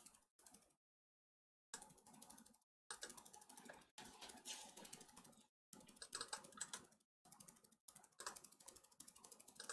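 Very faint, quick clicking and tapping from a computer mouse and keyboard, broken by short stretches of dead silence.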